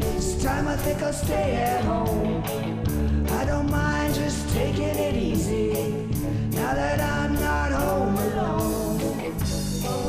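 Rock band soundtrack: a drum kit keeps a steady beat under a melodic lead line that bends up and down in pitch.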